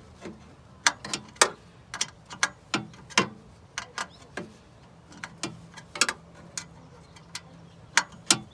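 Hand ratchet wrench clicking in short, irregular single and paired clicks, about two a second, as a bolt on the intake bracket is tightened.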